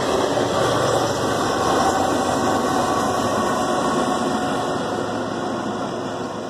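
Union Pacific diesel-electric locomotives at the rear of an empty ore train, their engines running as they pass close by, then fading slowly as they move away.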